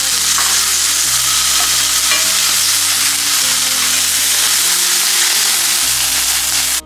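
Tamari-marinated tuna pieces sizzling steadily in a hot nonstick frying pan as they are turned over with a fork. The sizzle cuts off suddenly near the end.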